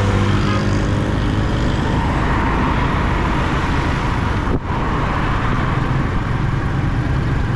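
Small motorcycle's engine running steadily while riding along a road, with wind rushing over the microphone and traffic around. The sound cuts out briefly a little past halfway.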